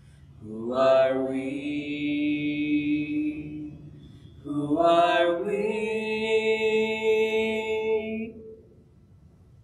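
Voices singing together, two long held notes, each scooping up into pitch at the start; the second dies away about a second before the end.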